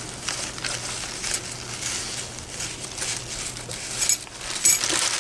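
Wrapping material rustling and crinkling as a packaged item is unwrapped by hand, with a couple of small sharp clicks near the end.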